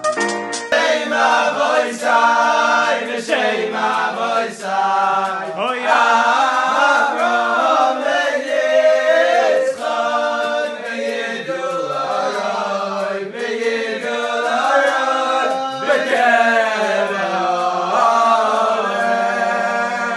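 Music: a chorus of voices singing a song over steady held low notes.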